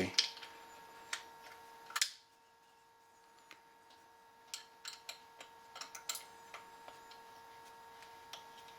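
Small metallic clicks and ticks of an Allen key working the long takedown screw while a rifle stock is being fitted, with a sharper click about two seconds in and a run of light ticks around five to six seconds in.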